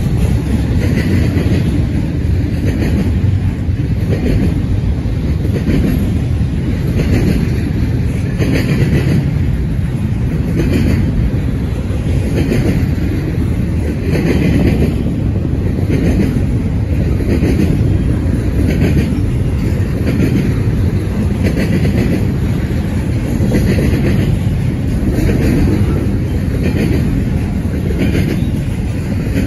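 Double-stack intermodal well cars of a freight train rolling past: a steady, loud low rumble of wheels on rail with a clack repeating about every second or so.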